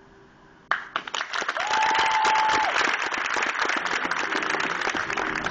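Audience applause and cheering bursting out suddenly under a second in after a moment of quiet, a dense crowd of clapping hands. One whistle from the crowd rises and then holds for about a second.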